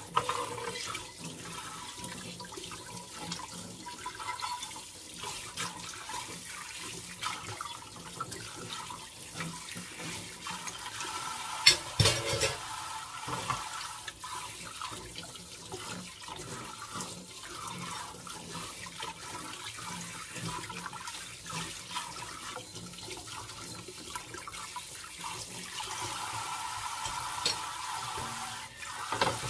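Kitchen faucet spray running steadily onto dishes being rinsed by hand in a stainless steel sink, with a single sharp knock about twelve seconds in.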